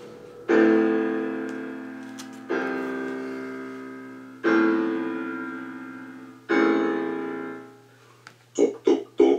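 Piano playing four sustained chords, one struck about every two seconds and left to ring and fade, then three short quick knocks near the end.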